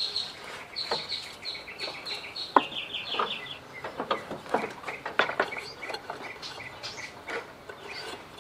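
Birds chirping, with a rapid run of repeated chirps for the first three and a half seconds and scattered chirps after, over a series of sharp knocks and clanks from handling the riding mower, the loudest about two and a half seconds in.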